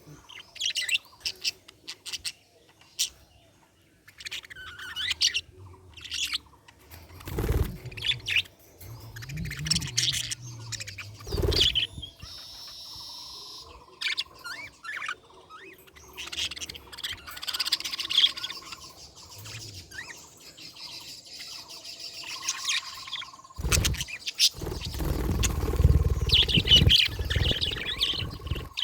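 Budgerigars chirping and warbling in quick, irregular runs of short high notes, with a few held whistled notes in the middle. Occasional low thumps and rumbles come through, loudest near the end.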